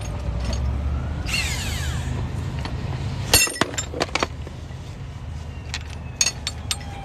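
Steady low traffic rumble with a vehicle passing early on. From about three and a half seconds in comes a string of sharp metal clinks, the first one the loudest.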